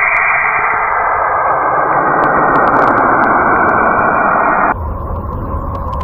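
A steady hissing rush of noise, presented as the sound of the planet Saturn, swelling over the first few seconds. About three quarters of the way in it cuts off abruptly and gives way to a quieter, deeper rumbling drone presented as the sound of Uranus.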